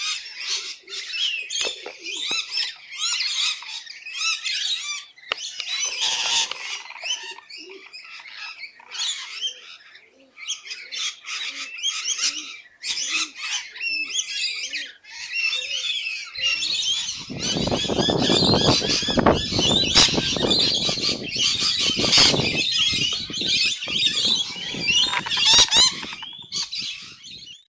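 A flock of rainbow lorikeets chattering and screeching without pause, shrill calls packed densely over one another. For a few seconds in the middle a lower note repeats about twice a second, and in the second half a broad rushing noise rises under the calls.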